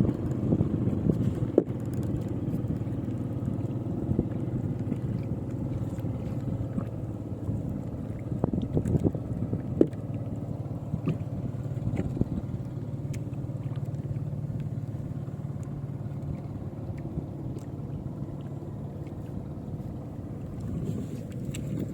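A motor running steadily with a low drone, with scattered light knocks over it.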